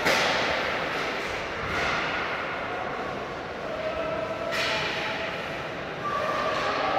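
Sharp smacks from basketball play in a gymnasium, echoing in the hall: a loud crack right at the start that dies away over about a second, and another about four and a half seconds in.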